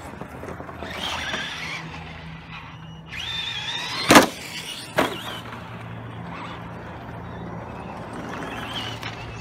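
Electric RC short-course truck motor whining as the truck drives, the whine rising as it speeds up just past three seconds in, then a loud knock about four seconds in and a smaller one a second later as the truck strikes something.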